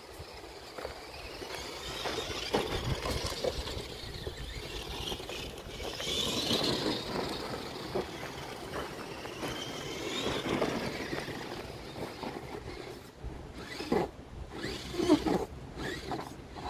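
Tamiya Konghead RC truck driving: its electric motor whines up and down with the throttle over a steady rumble of tyres and drivetrain on the ground. A few sharp knocks and scrapes near the end.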